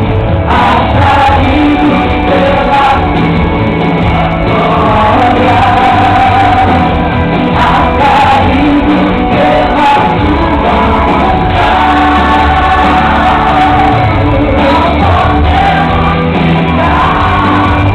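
A woman singing a gospel song live into a microphone over loud amplified backing music.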